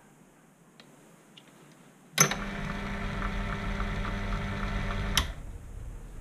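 Proxxon PD 250/e mini lathe switched on about two seconds in. Its motor and gear train run at a steady pitch for about three seconds, then stop suddenly: one of the repeated spindle runs of a single-point threading job. A few faint clicks from the handwheels come before it.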